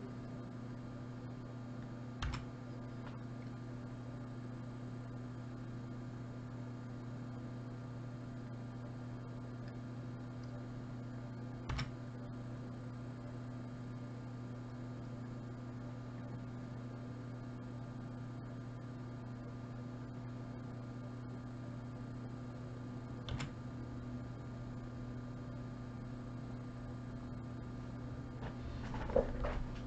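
Steady low electrical hum, with three single clicks spaced about ten seconds apart and a short cluster of soft knocks near the end.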